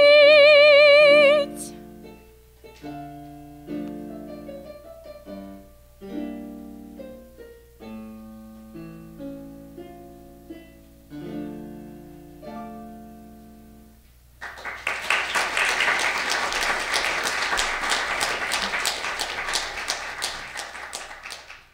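A woman's voice holds a final sung note with vibrato that ends about a second and a half in. An instrumental accompaniment then plays a closing passage of separate notes. From about fourteen seconds in, an audience applauds until the sound cuts off.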